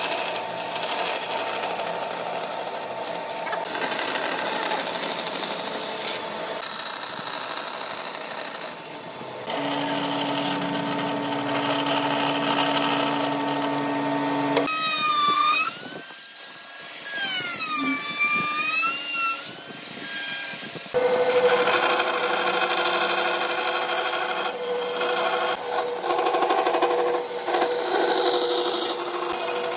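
Band saw running and cutting through pine boards: a steady motor hum with the blade rasping through the wood, its tone changing abruptly a few times. In the middle, a wavering whistle-like tone rises and falls for several seconds.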